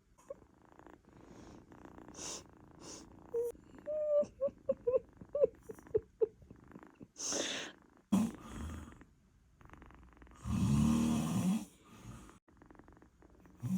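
British Shorthair cat snoring in its sleep. A run of short squeaky whistles comes from its nose partway through, then a hissing breath, then a long, loud, rasping snore about three-quarters of the way in.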